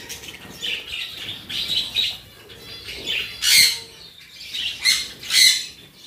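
A flock of budgerigars chattering and squawking, short high calls one after another, with three louder squawks in the second half.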